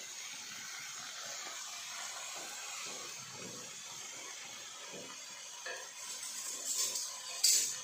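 Steady hiss of rice vermicelli and vegetables frying in a pan on the stove, with some louder noises about six seconds in and a short sharp one near the end.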